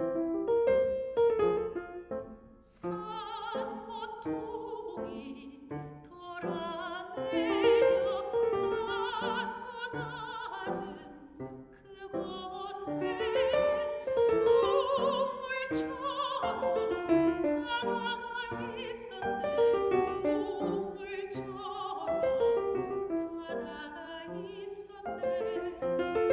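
Korean art song performed by a soprano with piano accompaniment. The piano plays alone at first, and the soprano's voice, with a wide vibrato, enters about three seconds in.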